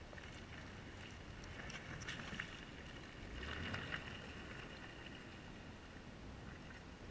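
Faint sound of a 2006 Jeep Wrangler TJ with its 4.0-litre straight-six driving off through mud and water, swelling briefly twice as it goes.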